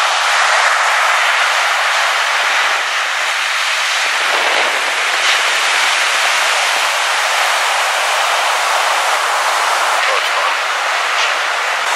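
Small ocean waves breaking on a sandy beach: a steady hiss and wash of surf.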